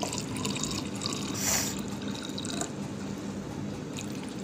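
Sweet orange drink poured in a thin stream from a steel pot into drinking glasses over watermelon cubes, trickling and splashing as the glasses fill.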